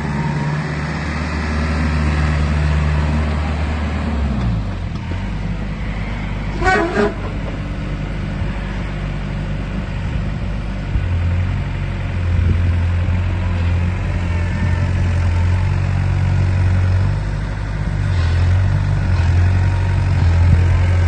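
Takeuchi TB175 wheeled excavator's diesel engine running, its speed dropping about four seconds in and then rising and falling in steps as it works. A brief high tone sounds about seven seconds in.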